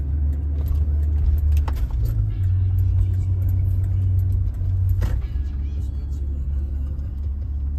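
Low, steady rumble of a car's engine and tyres heard from inside the cabin while driving slowly, with a couple of short knocks, about two seconds in and again about five seconds in.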